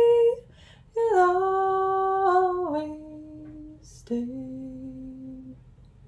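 A woman singing a cappella in slow, drawn-out notes. A held note ends just after the start, then a long phrase steps down in pitch and settles on a lower held note that stops about a second before the end.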